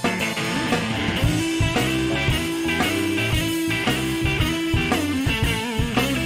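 Electric blues band playing live: lead electric guitar over a drum kit and backing band, with steady drum hits.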